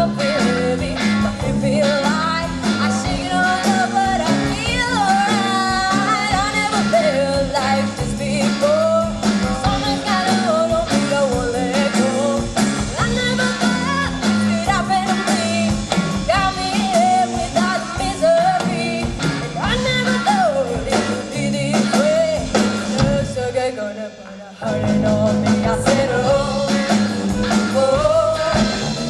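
Live rock band playing: drums, bass and guitar under a wavering lead melody. About twenty-four seconds in the band drops out for a moment, then comes back in at full volume.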